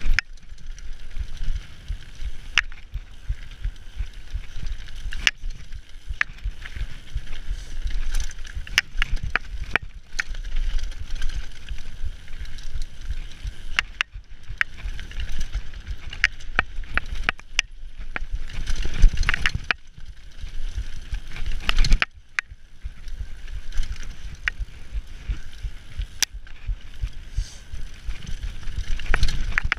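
Mountain bike descending a dirt and gravel trail at speed: tyres rumbling over the ground and wind buffeting the microphone, with frequent sharp clacks and rattles from the bike over bumps.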